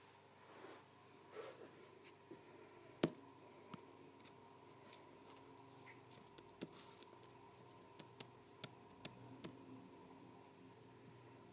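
Faint handling noise from a hand on a handheld phone and a sheet of paper: scattered small clicks and taps, with one louder click about three seconds in and a quick run of clicks near the end. A faint steady hum sits underneath.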